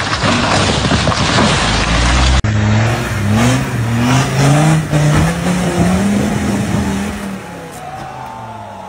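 Loud car engine and wheel noise for about two seconds, then, after a sudden cut, a Land Rover Defender's engine revving hard in repeated rising surges as it climbs a rock ledge. The revving drops away about seven seconds in.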